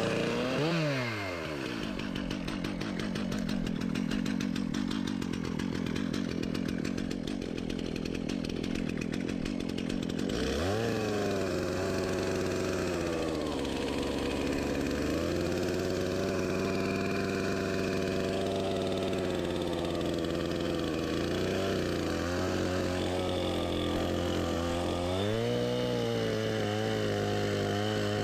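Two-stroke chainsaw engine dropping from high revs to idle and idling for several seconds. About ten seconds in it is throttled up to a high steady whine, and its pitch dips and rises again as it works.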